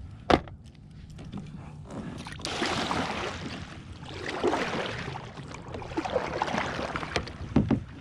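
Kayak paddle strokes splashing and swishing through river water in uneven surges, with a sharp click just after the start and a couple of knocks near the end.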